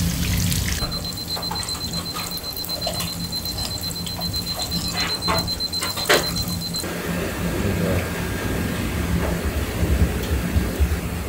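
Hot oil sizzling and crackling in a deep fryer full of large breaded shrimp, over a steady kitchen hum. A thin high tone runs for several seconds and a few sharp clicks come about six seconds in. After about seven seconds the sound turns to a lower rustling, as shredded cabbage is pressed into a bowl by hand.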